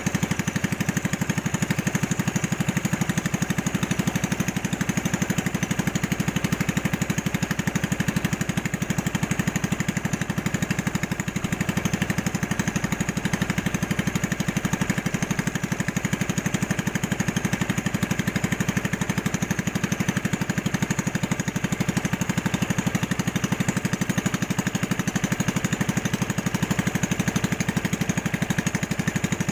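Small boat engine running at a steady speed, an even rapid beat that does not change.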